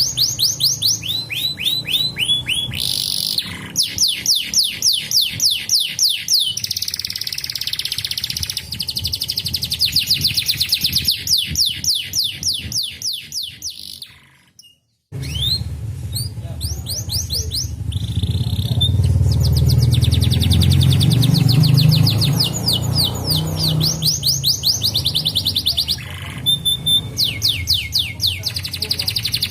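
Domestic canaries singing fast rolling trills of rapidly repeated, downward-sweeping notes. The song breaks off briefly about halfway, then resumes over a low hum for several seconds.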